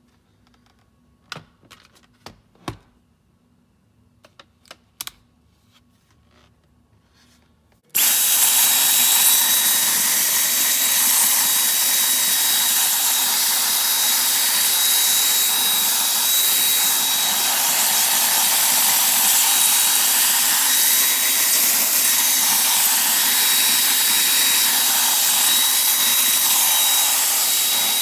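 A few light clicks and knocks, then about eight seconds in a Dyson Cyclone V10 cordless vacuum switches on and runs steadily and loudly, a rush of air with a thin high whine, for about twenty seconds before it stops.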